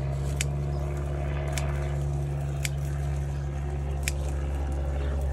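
A motor runs with a steady low hum, and a few sharp high clicks come about a second apart.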